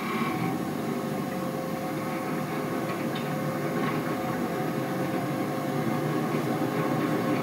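Car running at low speed, engine and tyre noise heard from inside the cabin as a steady rumble that grows slightly louder.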